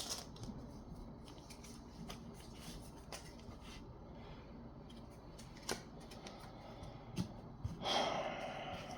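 Quiet handling of Pokémon trading cards: a few soft clicks and taps, then a longer rustling slide near the end.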